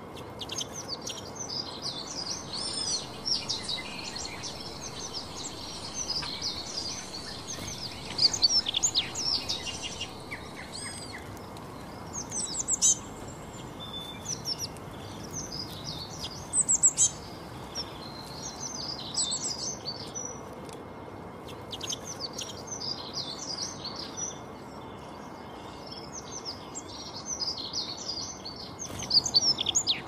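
Several small songbirds chirping and singing at once: a dense chorus of quick, high notes and trills that overlap throughout, with louder bursts of song now and then.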